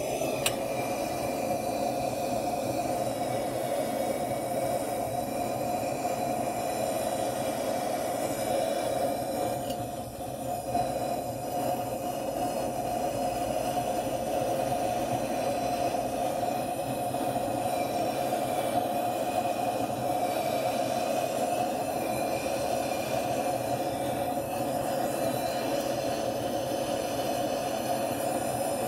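Handheld gas torch flame burning steadily with a rushing roar as it heats a small pot of pewter to melt it for casting, dipping briefly about ten seconds in.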